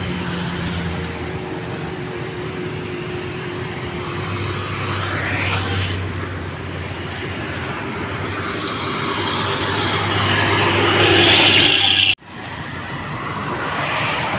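Road traffic on an expressway: vehicles passing one after another with engine and tyre noise swelling and fading. The loudest pass comes shortly before the end, when the sound drops out abruptly for an instant.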